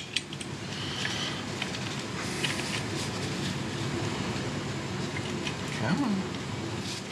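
Light metal clicks and taps as a motorcycle footpeg is worked onto its peg holder by hand, a few near the start and about two and a half seconds in, over a steady hum. A short low vocal sound rises and falls about six seconds in.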